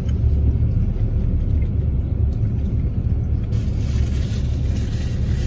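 Car engine idling, a steady low rumble heard inside the cabin; a soft hiss joins about two-thirds of the way through.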